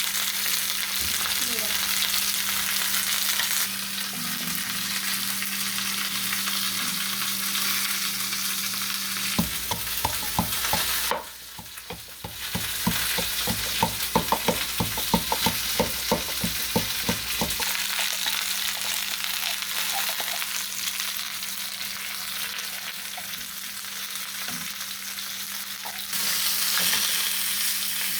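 Food sizzling in hot oil in a pan, over a steady low hum. For several seconds in the middle, a utensil stirs against the pan in quick, regular strokes.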